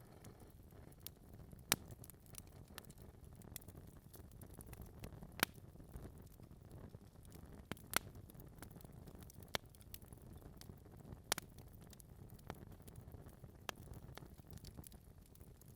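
Log fire burning with a soft low rumble and irregular sharp crackles and pops from the wood, the loudest pops about 1.5, 5, 8 and 11 seconds in.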